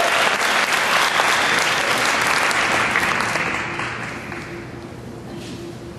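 Crowd of spectators applauding after a tennis point, the clapping dying away about four seconds in.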